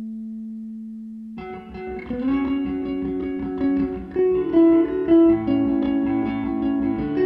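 Background music: a held note fading out, then about 1.4 s in a guitar-led band comes in with bass and a melody line.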